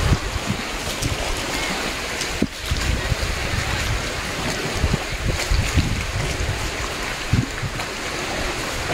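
Wind buffeting the microphone in uneven low gusts, over a steady wash of lake water.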